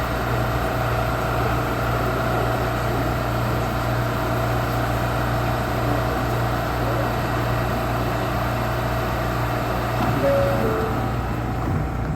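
Interior of an R179 subway car running through the tunnel: a steady rumble of the wheels and traction motors, with a low hum and a faint motor whine. A brief higher tone, stepping down, comes about ten seconds in.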